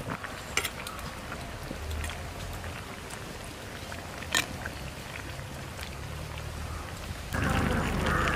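Fish curry simmering in a clay pot over a wood fire, with a ladle clicking against the pot twice. Near the end a louder steady hiss comes in suddenly.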